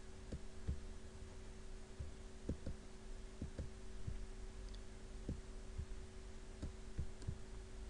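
A dozen or so soft, irregularly spaced thuds of a computer mouse being clicked and dragged, picked up by a desk microphone, over a steady low electrical hum.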